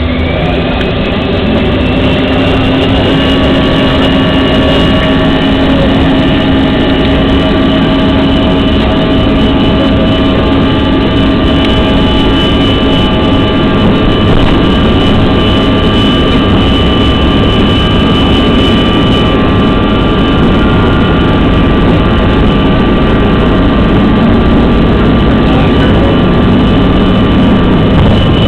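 Inside the cabin of a CRJ-200 regional jet: its rear-mounted General Electric CF34 turbofans spool up to takeoff thrust, the whine rising in pitch in the first second, then holding a steady, loud whine over a low rumble through the takeoff roll.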